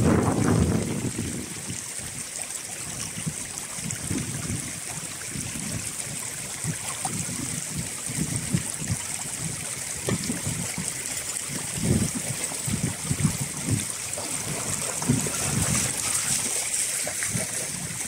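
Fast-flowing shallow river water rushing over pebbles, a steady hiss. Brief low rumbles come every few seconds, with a louder one in the first second.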